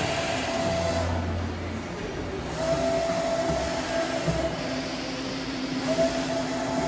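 Willis RTM100 CNC vertical machining center running under power: a whine at one steady pitch that comes and goes three times over a steady mechanical hum and hiss.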